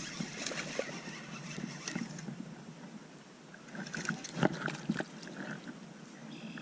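Small knocks and clicks on a small fishing boat over a steady wash of water and wind noise, busiest about four to five seconds in.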